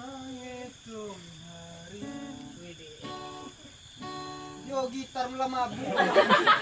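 Acoustic guitar strummed and picked, with a voice singing along in held, gliding notes. A louder burst of several voices comes in near the end.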